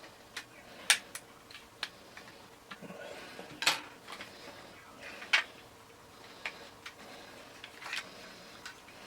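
Irregular sharp plastic clicks and taps from handling an action figure while trying to work a part that is sticking, the loudest about a second in and twice more in the middle.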